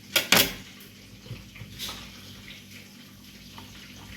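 Two sharp knocks just after the start, then a faint steady run of water from a kitchen tap into the sink, with a few light clicks.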